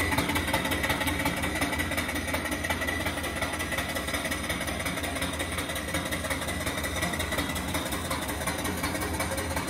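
Small stationary steam engine (2.75-inch bore, 4-inch stroke) running steadily under steam from a return-flue boiler, its exhaust piped up the boiler's smokestack.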